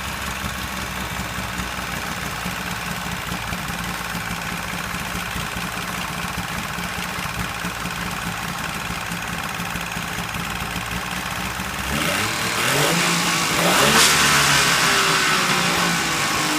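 Suzuki Jimny SJ30's LJ50 two-stroke three-cylinder engine idling steadily with a rattling abnormal noise, then revved up about twelve seconds in, peaking near fourteen seconds and easing back down.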